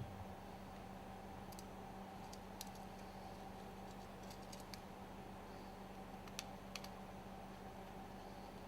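Faint, scattered light clicks, about eight of them at irregular intervals, over a steady low electrical hum.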